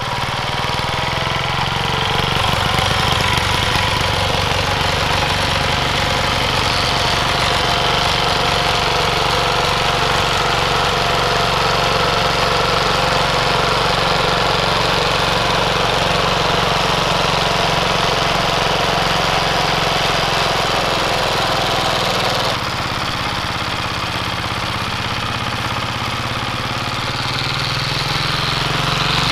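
Yanmar TC14 walking tractor's single-cylinder diesel engine running steadily as the tractor works the soil. The level drops abruptly a little about three-quarters of the way through.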